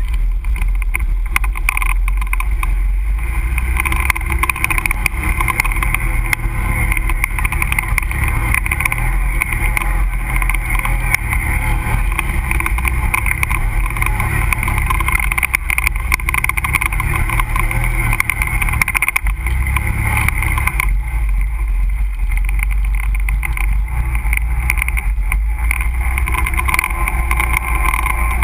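Can-Am ATV engine running steadily at trail speed while the machine ploughs through muddy floodwater, with water splashing and crackling against the machine. About twenty seconds in, the sound thins out as the splashing eases.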